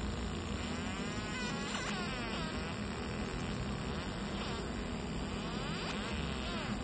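Fiber laser marking machine deep-engraving a metal plate: a steady buzz with whining tones that sweep up and down in repeated arcs as the galvo scanner traces the design, over a constant low hum.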